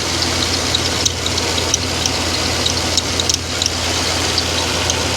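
Freshly rebuilt GM LS4 5.3 V8 running steadily while warming up, with short high chirps from the accessory drive belt at irregular intervals. The belt is dirty and chirping as it slips.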